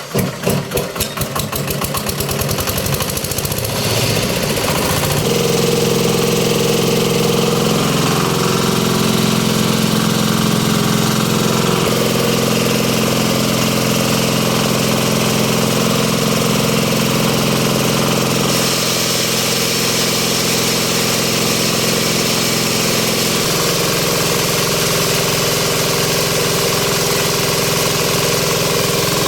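Engine of a goat-manure grinding machine starting up, its pulses quickening over the first few seconds, then running steadily. Its tone shifts a few times partway through.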